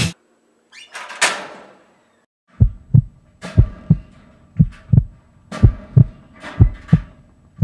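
A metal school locker door clanks shut about a second in. Then a slow heartbeat sound effect starts, a low double thump about once a second.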